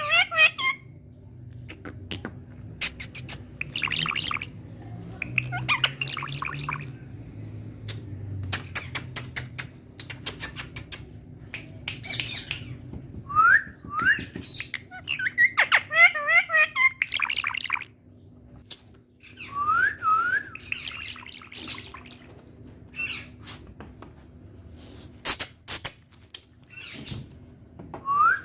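Green ringneck parrot (Indian ringneck parakeet) chattering and squawking in short bursts, with several quick rising whistles and runs of sharp clicks between them.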